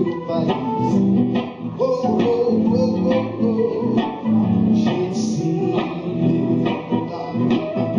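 A live band playing a guitar-led number during a sound check, plucked guitar over bass with a steady beat.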